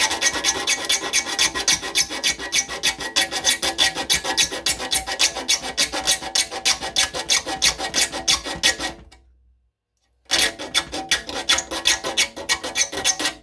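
Metal file stroking across hand saw teeth to sharpen them, a rapid rasping scrape of about four strokes a second. The filing stops for about a second near the end, then starts again.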